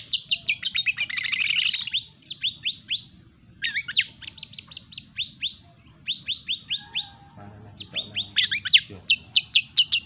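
Caged oriental magpie-robin (kacer) singing in bursts of quick, repeated falling whistled notes and chattering trills, broken by short pauses between phrases. This is the pausing 'jeda' style, its song packed with imitations of small birds.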